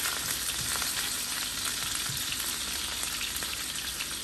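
Seasoned chicken pieces frying in hot oil in a pan: a steady sizzling hiss with small scattered crackles.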